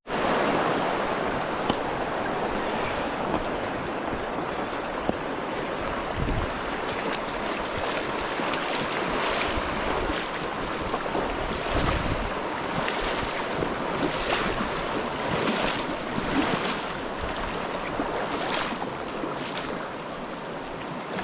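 Fast, high water of a rain-swollen small creek rushing steadily. From about eight seconds in, light taps and rustles recur over it.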